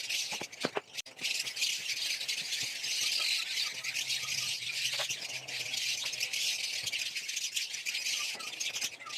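Steady dry rattling and rustling made of many fine irregular ticks, with a few faint bird chirps.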